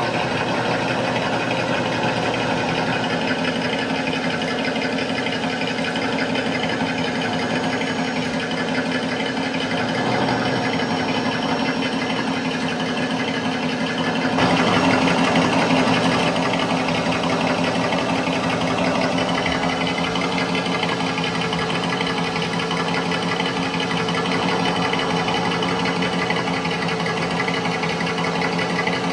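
Simulated engine sound from an RC Ford Bronco Baja's engine-sound module, idling steadily, with a brief louder rev about halfway through.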